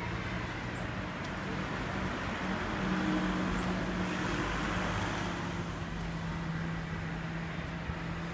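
Motor vehicle engine running close by over general street traffic, a steady low hum that grows louder for a couple of seconds in the middle. Two faint, brief high chirps, about one second and three and a half seconds in.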